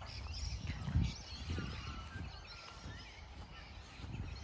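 Faint outdoor bird chirps and calls, over a low rumble on the microphone with a soft thump about a second in.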